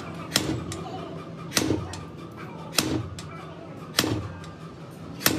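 Sharp metal-on-metal clanks at a steady pace, about one every second and a quarter, five in all, from a wrench being worked on the steering knuckle of a heavy truck's front axle. Each clank rings briefly, over a steady low hum.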